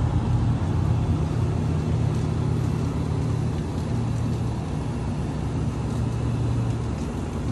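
Steady low hum and rumble of open refrigerated supermarket display shelves running.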